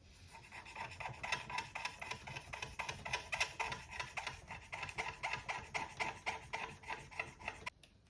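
Rhythmic scrubbing on a circuit board, cleaning it with isopropyl alcohol: about four scraping strokes a second, stopping abruptly near the end.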